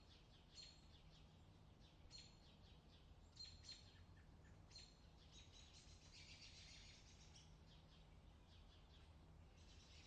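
Faint outdoor summer ambience of small birds chirping in short, scattered high calls, thickening into denser twittering a little past halfway and again near the end, over a steady low hum.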